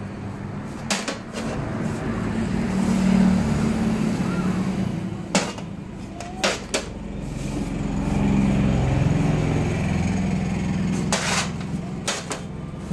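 Scattered sharp metal clinks, about seven, as steel cup moulds knock against a steel tray while soan papdi flakes are packed into them. Under them runs a steady low hum of road traffic.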